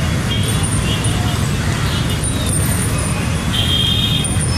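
Steady city street ambience: a continuous rumble of traffic with indistinct voices in the background, and a short high tone about three and a half seconds in.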